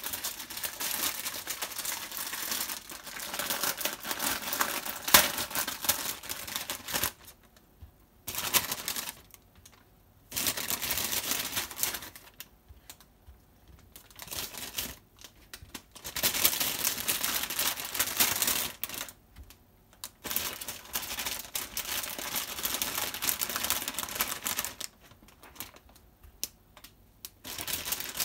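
Crackly, rustling handling noise as shiitake mushrooms are picked up and set down on a plastic cutting board. It comes in bursts of a few seconds, broken by short quiet pauses several times.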